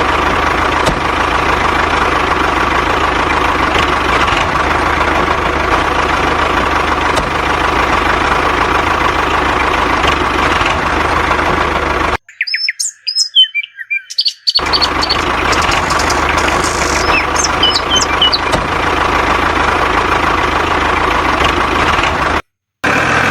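Small motor of a DIY miniature combine harvester running steadily with a thin whine. It cuts out for about two seconds about halfway through, where small birds chirp, then runs again with more chirps over it.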